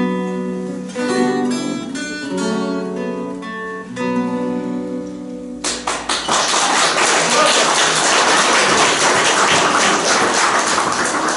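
Acoustic guitars playing the closing bars of a song, stopping about halfway through. Then audience applause breaks out suddenly and carries on.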